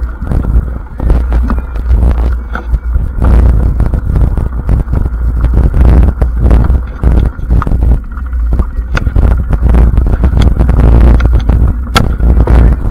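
Mountain bike riding fast over a dirt singletrack: wind rumbles steadily on the camera microphone, the tyres roll over dirt and leaves, and the bike rattles with many sharp clicks over bumps.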